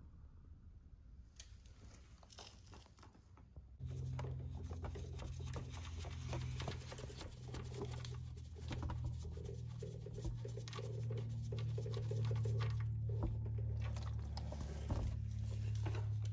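Warm engine oil draining from a motorcycle's sump into a plastic drain pan: the drain plug is worked loose and the oil patters and splashes into the pan. There are a few scattered clicks at first, then a steady low hum sets in about four seconds in.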